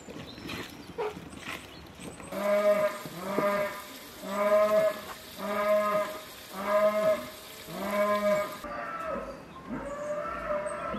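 Livestock calling: a run of about six short calls, even in pitch and roughly one a second, starting about two seconds in. Near the end this gives way to softer calls that glide in pitch.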